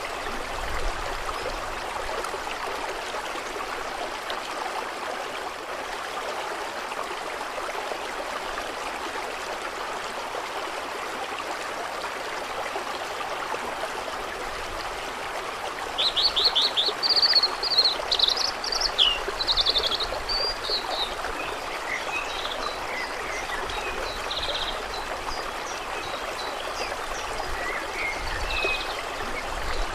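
Steady rush of running water. About halfway through, a songbird sings a loud run of quick trills and whistles, followed by a few fainter chirps.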